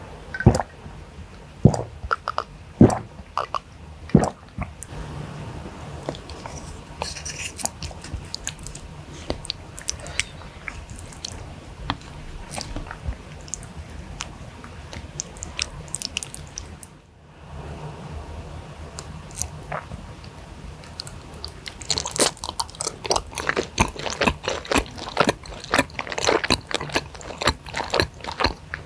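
Close-miked eating sounds: sips and gulps from a glass in the first few seconds, then a wooden spoon in a bowl of spicy soupy flat rice noodles with meatballs, and a dense run of wet chewing and smacking in the last several seconds.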